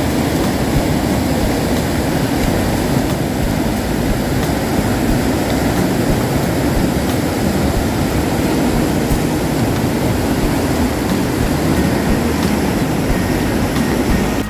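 A loud, steady rushing and rumbling noise that cuts off suddenly at the end.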